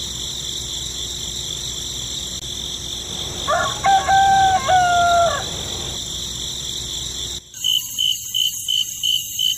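A rooster crowing once, a long call about three and a half seconds in, over a steady high-pitched background drone. Near the end the background changes abruptly to a high pulsing chirp about three times a second.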